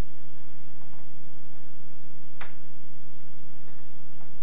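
Faint scattered scratches and one sharp click about halfway through, the attic scratching noises of the scene, over the steady hum and hiss of a worn VHS soundtrack.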